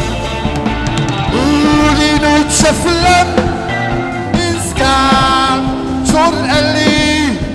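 Live band music played loud through stage loudspeakers, a male singer's voice gliding over it in several long, held phrases.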